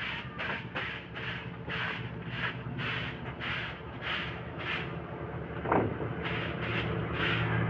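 Broom sweeping the ground in quick, regular scratchy strokes a little over half a second apart, with a short break about two-thirds of the way through where a brief rising squeak is heard.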